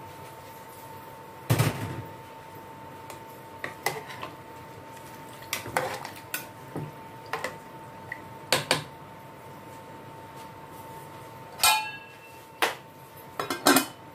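Metal ladle knocking and scraping against an aluminium cooking pot as chicken pieces are stirred: a string of sharp, irregular clanks. Near the end the aluminium lid clatters onto the pot with a brief ring.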